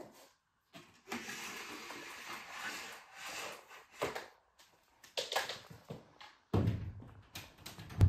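Canister vacuum cleaner's power cord pulled out of its reel for about two seconds, followed by a few sharp clicks and then heavier knocks as the plug is taken to the wall socket. The motor is not running.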